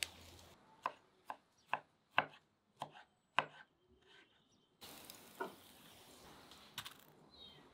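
Kitchen knife chopping diced tomatoes on a wooden cutting board: about seven sharp knocks, roughly two a second. Then a steady background hiss with a single thud.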